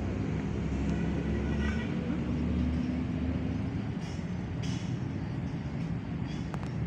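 City street traffic: a heavy vehicle's engine running low and steady, with a few short hisses about four seconds in.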